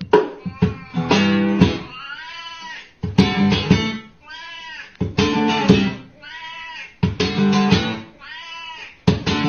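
An acoustic guitar strummed one chord at a time, about every two seconds. Between the chords a cat meows four times, each meow a long call that rises and falls in pitch, so that strum and meow take turns.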